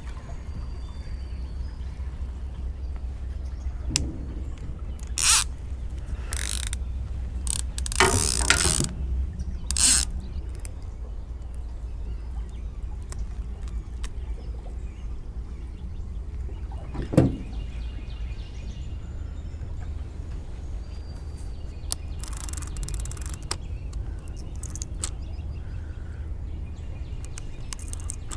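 A rod and baitcasting reel being handled: ratcheting clicks, one sharp click and several short hissing rushes over a steady low rumble, with faint bird chirps.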